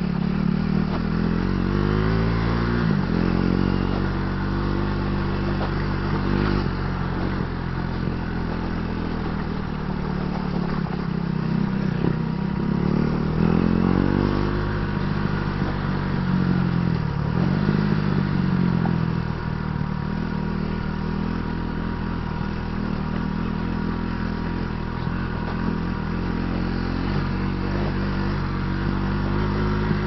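KTM Duke 390's single-cylinder engine running as the motorcycle is ridden, the revs rising and falling several times with the throttle.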